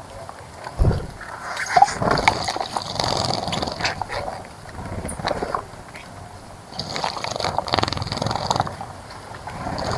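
Birds splashing and fluttering in the water of a bird bath, in irregular bursts of a second or two, with some chirps.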